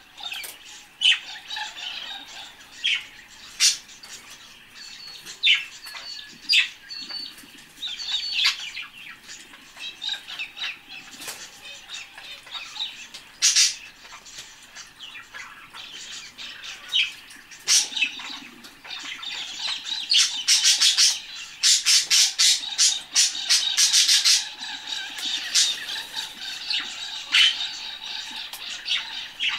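Budgerigars chattering and chirping with sharp squawks, and a loud run of rapid wing-fluttering about two-thirds of the way through as one bathes in a shallow dish of water.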